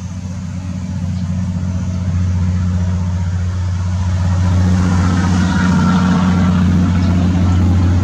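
An engine running with a steady low hum that grows gradually louder, as of a motor vehicle drawing near.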